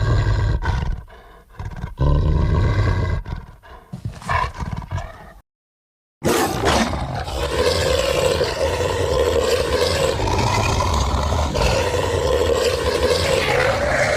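Movie monster vocal sound effects: a beast growling and snarling in short broken bursts. After a brief silence about five seconds in, it lets out one long, continuous roar.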